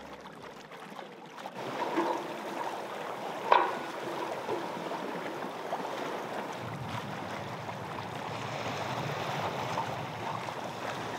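Water washing along the hull of a small sailboat sailing slowly downwind, with one sharp knock about three and a half seconds in. About halfway a deeper rumble joins the wash.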